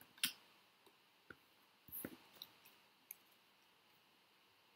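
A few faint clicks and rustles of small paper picture cards being handled. The sharpest click comes about a quarter second in, and there is a small cluster around two seconds.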